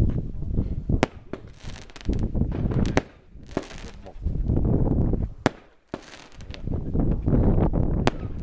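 Consumer fireworks going off: sharp bangs, about five in all, several seconds apart with a quick double crack about three seconds in, mixed with the hissing of rising comet tails.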